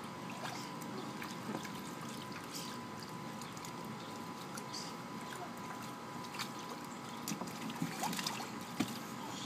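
Light splashing and trickling of shallow water as toddlers step and move about in small paddling pools, with scattered small splashes that come more often near the end.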